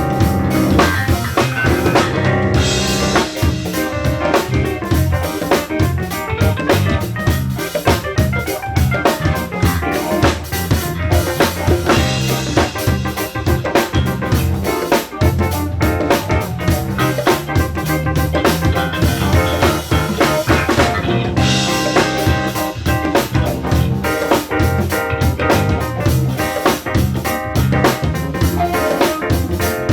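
Live band playing through a PA: drum kit with bass drum and snare or rimshot keeping a steady beat under electric guitar and bass.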